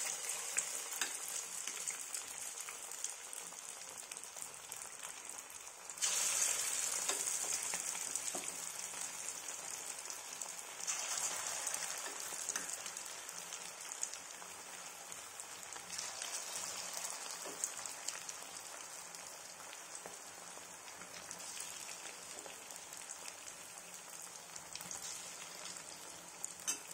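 Batter-coated chicken pieces deep-frying in hot oil in a kadai: a steady hissing sizzle that flares up sharply about every five seconds as another piece goes into the oil, then settles back.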